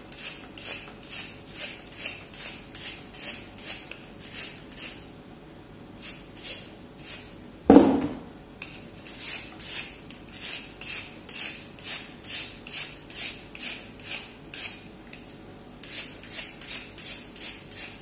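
Vegetable peeler scraping strips off a raw carrot in quick repeated strokes, about two to three a second, with short pauses between runs. A single louder thud about eight seconds in.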